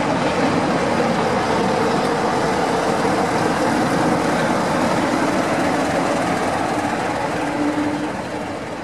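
Train of passenger coaches rolling past with a steady rumble of wheels on the rails, the green diesel locomotive coupled at the rear passing about four seconds in. The sound fades down near the end.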